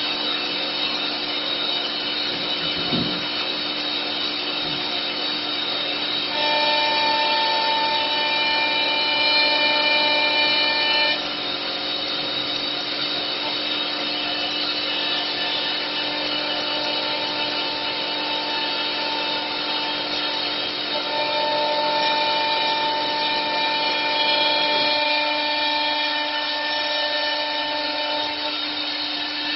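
CNC wood lathe's router spindle running with a steady high whine as its bit carves a turned wooden post in 4-axis engraving mode. The whine grows louder and stronger about six seconds in and drops back about five seconds later. It rises again from about two-thirds of the way through until shortly before the end.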